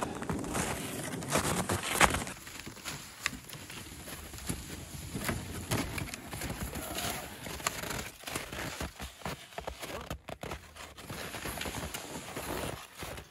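Snowshoe footsteps crunching in snow, with cut firewood logs knocking together as they are stacked onto a sled: an uneven run of crunches and wooden knocks.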